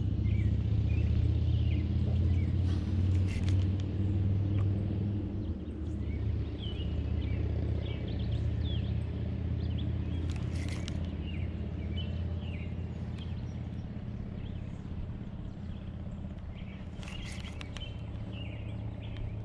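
Songbirds chirping in short, sometimes gliding calls over a steady low rumble that slowly fades, with a few sharp clicks.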